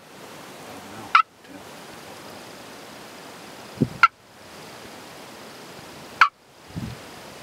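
Wild turkey tom gobbling three times, short loud calls about a second, four seconds and six seconds in.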